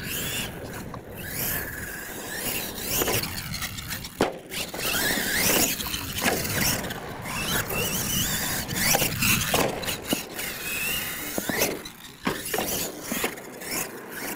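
R/C monster truck's motor and drivetrain whining, the pitch rising and falling as the throttle is worked. A few sharp knocks cut through.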